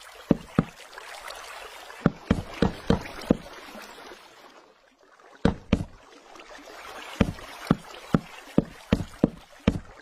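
A series of irregularly spaced sharp knocks or clacks over a steady rushing noise. The rushing dips briefly about halfway through, and the knocks come faster near the end.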